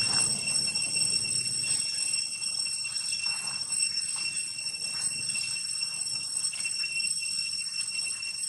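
Steady high-pitched drone of insects, several constant tones held without a break, over faint scuffling of young macaques wrestling on dry ground.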